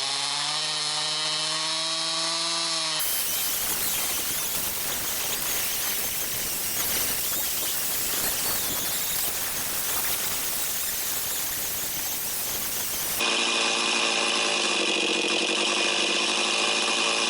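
Chainsaw engine running at a steady pitch. About three seconds in it gives way to a chainsaw cutting through a very hard, dense red box eucalyptus log, a dense noise with no clear engine note. Near the end the steady engine note returns.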